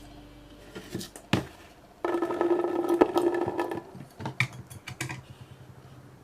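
Hands handling slime-making materials: a few sharp clicks and knocks, then about a second and a half of rubbing, scraping noise, then scattered light ticks that die away.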